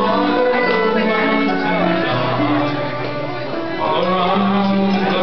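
Live acoustic ensemble music: plucked strings under long held melody notes, over sustained low notes.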